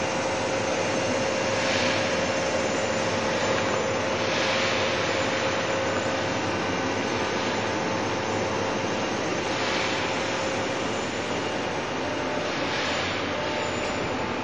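Blanchard 11D-20 vertical spindle rotary surface grinder running with its spindle turning: a steady mechanical drone with a steady hum tone. A hiss swells and fades several times.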